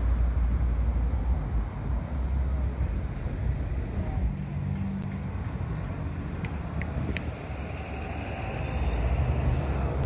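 Steady road traffic noise, a low rumble of passing vehicles that swells at the start and again near the end, with a few faint sharp clicks around the middle.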